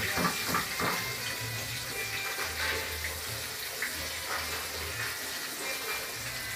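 Steady rushing of water from a kitchen tap, with a few light clinks of bowls in the first second. A low, uneven rumble of wind on the microphone runs underneath.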